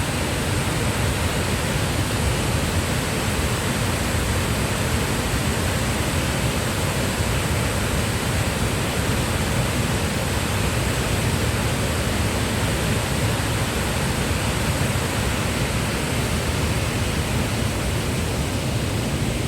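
A waterfall carrying a lot of water, rushing steadily with an even, unbroken sound of falling water.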